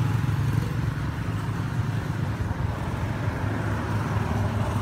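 An engine running steadily, an even low hum that neither revs nor changes.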